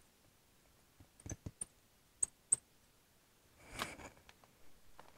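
Faint scattered clicks and taps of a marker writing on a glass lightboard, a few short strokes between about one and two and a half seconds in, then a brief soft rustle near four seconds.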